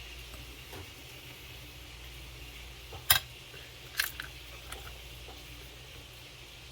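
A few sharp clicks and taps of small metal tools and parts being handled while working on an RC truck, the loudest about three seconds in and another about a second later, over a steady low hum.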